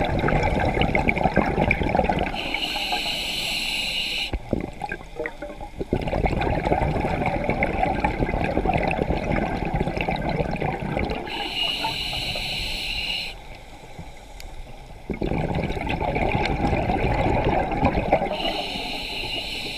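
Scuba regulator breathing close to the microphone. Long bubbling rushes of exhaled air alternate with hissing inhales of about two seconds each, about three breaths in all.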